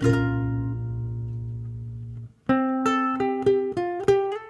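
Multitracked ukuleles playing an instrumental passage: a strummed chord with a low bass note under it rings and fades, stops about two seconds in, and after a short gap a run of picked single notes begins.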